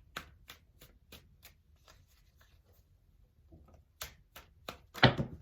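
Tarot cards shuffled by hand: a run of quick light card clicks that slows and thins out, then a few more clicks and one louder slap of cards near the end.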